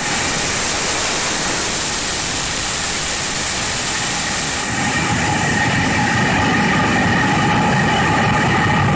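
Air rushing past a rocket's onboard camera in flight: a loud, steady rush of noise. About five seconds in the high hiss eases and a few steady whistling tones come through.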